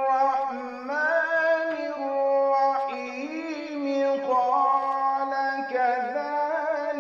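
A man reciting the Qur'an in the melodic tajweed style, holding long notes with wavering ornaments and stepping up and down in pitch, heard over a video call.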